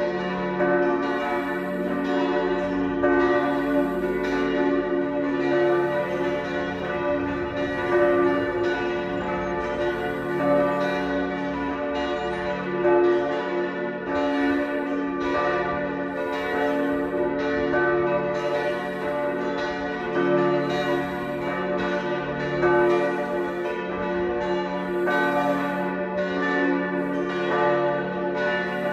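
Several church tower bells ringing together in a full peal, their strokes about once a second overlapping into one continuous ringing.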